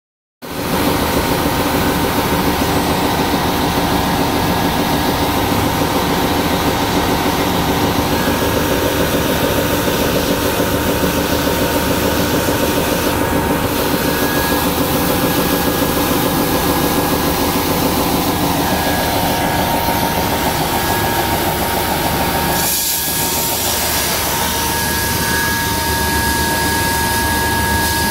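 Jonsen SGP1000 deburring and edge-rounding machine running steadily, with a loud, even mechanical noise and a steady high whine, as plasma-cut aluminium plate is fed through on its conveyor. The noise starts abruptly right at the start and dips briefly about three-quarters of the way through.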